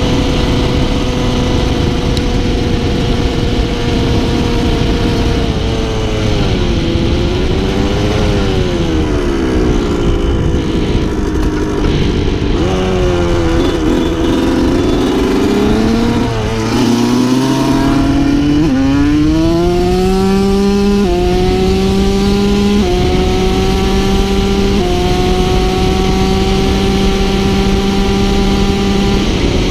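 1987 Yamaha YZ125's two-stroke single-cylinder engine running under way. Its note sags and picks back up twice, then climbs and steps back down three times in the second half as the bike is shifted up through the gears, over heavy wind noise on the microphone.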